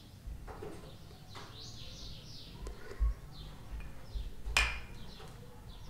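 Faint bird chirps in the background, with two short knocks about three and four and a half seconds in as small bowls are handled and set down on the cloth-covered table.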